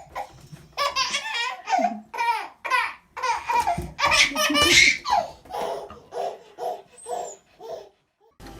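A baby laughing in a long string of belly laughs, short bursts in quick succession that are loudest midway and die down near the end.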